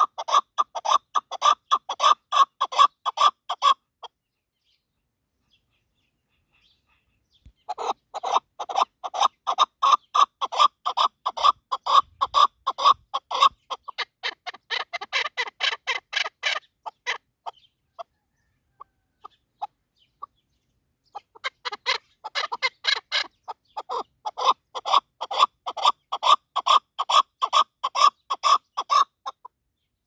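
Chukar partridge calling: long runs of rapid, evenly repeated clucking notes, in three bouts separated by short pauses, with a few single notes in the second pause.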